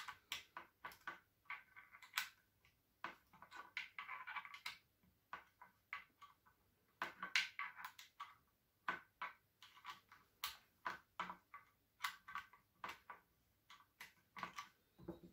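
Hex key unscrewing the stock screw of a Sauer 303 rifle: faint, irregular light clicks and short scrapes as the key is turned and re-seated in the screw head.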